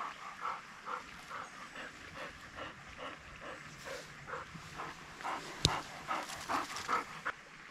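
Wire-haired pointer panting rapidly, about three to four breaths a second, as she works at a truffle spot. A single sharp snap or knock a little past halfway.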